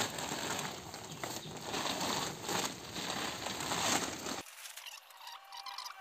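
Vermicompost poured from a plastic sack into a plastic tub: the sack crinkling and the compost pattering down. About four seconds in it cuts off abruptly, leaving a fainter passage of thin, high tones that glide downward.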